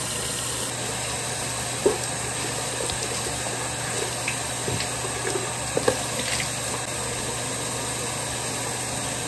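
Bathroom sink tap running steadily into the basin, with a few splashes as water is scooped onto a face, about two seconds in and again around six seconds.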